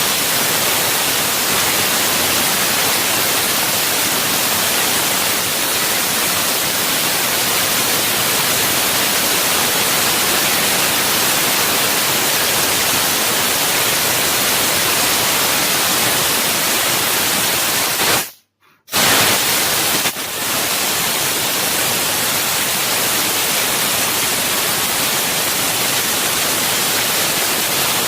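Fiber laser cutter's assist-gas jet hissing steadily through the cutting nozzle while it cuts sheet material. About 18 seconds in, the sound cuts out completely for about half a second, then resumes. Shortly after it resumes, there is a brief dip in level.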